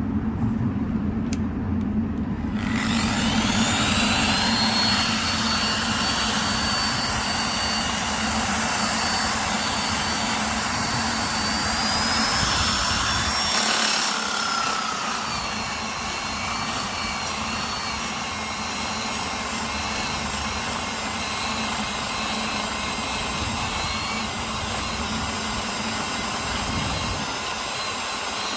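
Adjustable-speed disc grinder with a paint-clogged sanding pad starts up about two seconds in and runs steadily, grinding antifouling bottom paint off a boat hull. The paint build-up on the pad heats the paint and rubs it away. Its whine rises in pitch about halfway through, then drops and settles lower, over a steady low hum.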